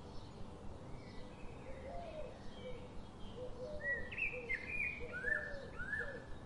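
Birds chirping: a run of short, repeated low calls, with louder, higher calls between about four and six seconds in.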